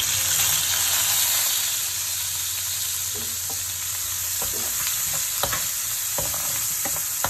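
Chopped onions sizzling in hot oil in a frying pan as they start to fry, with several clicks of a metal spatula against the pan as they are stirred from about three seconds in.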